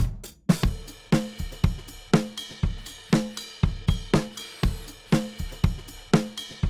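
Background music: a drum beat with kick, snare and hi-hat or cymbal hits, about two beats a second.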